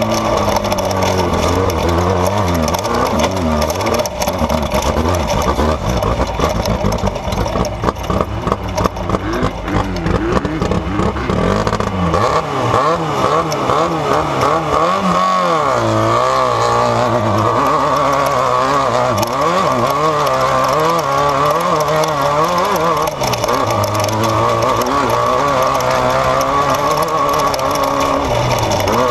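Off-road race vehicle's engine running hard, its pitch rising and falling again and again as the throttle is worked, with dense rattling through the first half.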